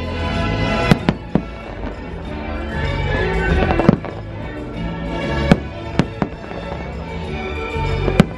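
Aerial fireworks shells bursting in a display: about eight sharp bangs at irregular intervals, over the show's soundtrack music.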